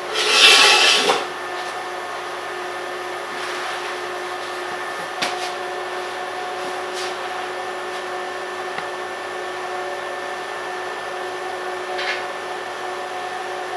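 TiP TiG hot-wire TIG welding of a stainless-steel fillet weld: a steady machine hum with a few constant tones, with a louder rush of noise in the first second and a few faint clicks.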